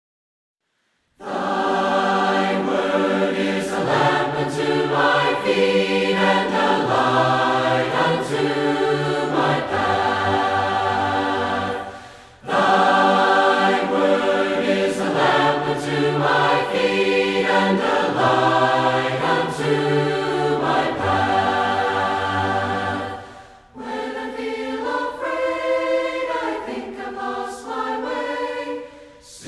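A choir singing a hymn unaccompanied, several voices in harmony over a low bass line, starting about a second in and pausing briefly twice between phrases.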